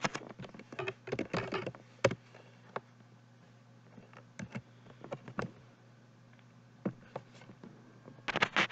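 Scattered clicks and taps of a computer keyboard and mouse, bunched in quick clusters near the start, around a second in and near the end, with single clicks between, over a faint steady low hum.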